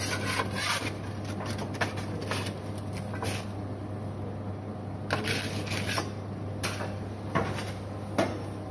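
Scattered light knocks and clicks, roughly one a second, over a steady low hum.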